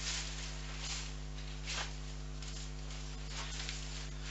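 Large plastic bag rustling and crinkling in a few short bursts as a hand rummages inside it and pulls a sleeping bag out, over a steady low hum.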